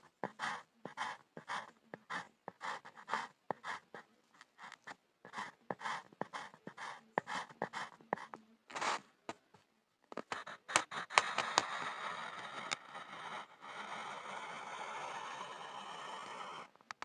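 Pencil scribbling on a board: quick back-and-forth scratching strokes, about three a second, that run together into a steadier, denser scratch with a few sharp ticks about ten seconds in, stopping just before the end.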